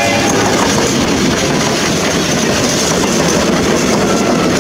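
Passenger train hauled by a steam locomotive rolling past close by, with a steady rumble and clatter from the coaches' wheels on the rails.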